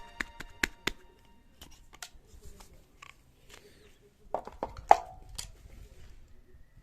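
Scattered sharp clicks and knocks of metal parts and tools being handled: a quick run of clicks in the first second, then a few louder knocks about four to five seconds in, one ringing briefly.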